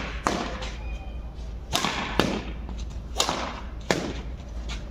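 Badminton rackets hitting a shuttlecock in a rally: sharp smacks at uneven intervals, about five of them.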